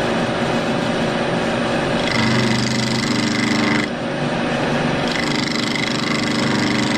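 Vertical milling machine's end mill cutting the ends of steel plates held in a vise: a steady, loud cutting noise over the machine's running. The pitch of the cutting tone shifts about two seconds in and again about four seconds in.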